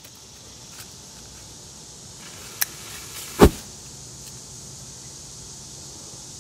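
A small open heap of 4F black powder being ignited: a short sharp click, then under a second later the powder flashes off in one brief loud puff.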